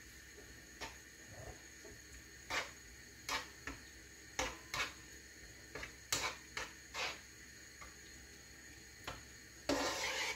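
Metal spoon stirring a thick cream and cheese sauce in a non-stick frying pan, with irregular soft scrapes and taps against the pan. A short louder rush of noise comes near the end.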